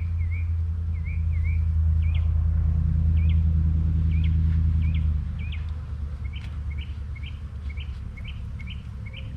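A small bird chirping over and over, short high chirps that come about two a second in the second half, over a loud low rumble that drops away about five seconds in.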